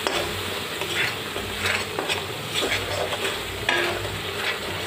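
A spatula stirs and scrapes ground spice paste around a karahi in hot oil, with repeated scrapes against the pan over a steady sizzle. This is the masala being sautéed.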